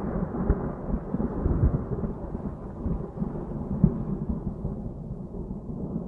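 Thunder-like rolling rumble sound effect, deep and crackling with uneven peaks, slowly fading near the end. It is made as the thunder-like sound of a kelpie's tail entering water.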